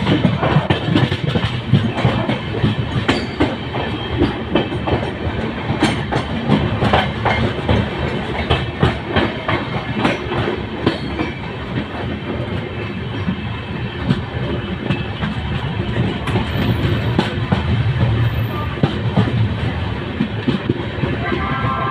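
Train running on the rails: a steady rumble of railway carriages with irregular clickety-clack of wheels over rail joints.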